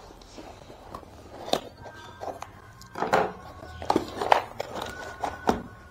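White cardboard box being handled and opened by hand: irregular rustling and scraping of cardboard flaps and packaging, with a few light clicks and knocks.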